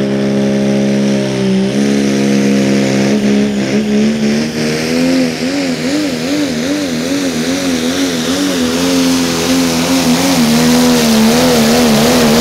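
Pro Stock Diesel pulling truck's diesel engine running flat out under load while it drags a weight-transfer sled. The engine note holds steady at first, steps about two seconds in, then wavers up and down a couple of times a second as the truck pulls down the track.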